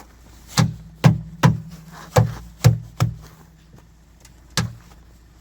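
About seven sharp knocks, one after another, as the stuck metal engine lid of an old Valmet forklift is jerked and banged on to free it, the panel ringing low after each knock.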